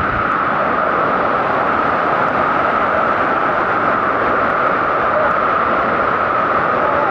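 Waterfall rushing: a steady, loud roar of falling water that does not change.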